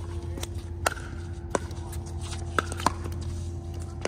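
Pickleball rally: sharp hollow pops of paddles striking the plastic ball and the ball bouncing on the court, about five in four seconds at an uneven pace, over a steady low hum.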